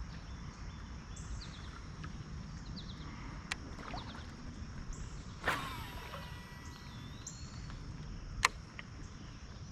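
Faint, repeated high bird chirps over a steady low outdoor rumble, with three sharp knocks; the loudest comes about halfway through.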